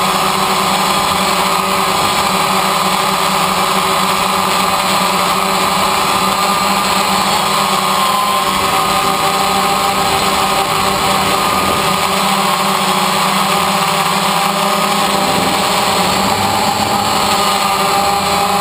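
DJI Phantom quadcopter's electric motors and propellers running in flight, a steady whine and hum whose pitch wavers slightly as it manoeuvres, heard close up from a GoPro mounted on the drone.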